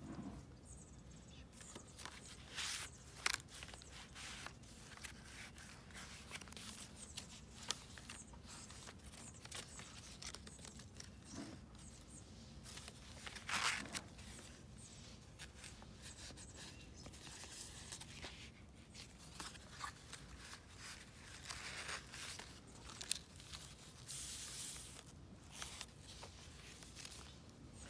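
Paper pages and tucked-in ephemera of a handmade junk journal rustling and crinkling as hands turn, lift and press them. It comes in scattered short rustles, with a few louder ones.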